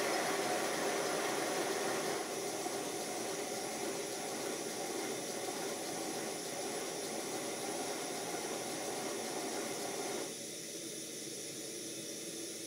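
A 5-inch gauge live steam model locomotive running on its stand with a steady steam hiss. The hiss drops in level twice, about two seconds in and again about ten seconds in.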